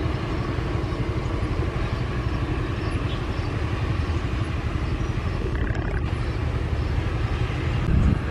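Twin-engine turboprop aircraft at takeoff power, a steady engine noise as it lifts off and climbs away.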